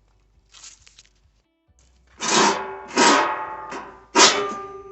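Background music: four strummed guitar chords, each ringing out and fading, after a quiet start.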